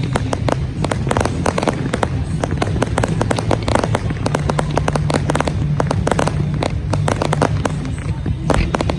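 Fireworks finale barrage: shells launching and bursting in rapid succession, a dense run of sharp bangs and cracks heard close to the launch site.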